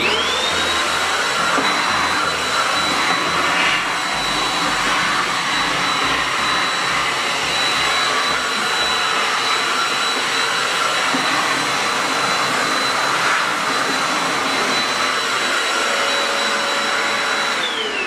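Mondial Cyclo 2-in-1 stick vacuum running without its crevice nozzle, sucking along a floor corner. Its motor is switched on at the start and whines up to a steady high pitch over a rushing of air. Shortly before the end it is switched off and the whine falls away.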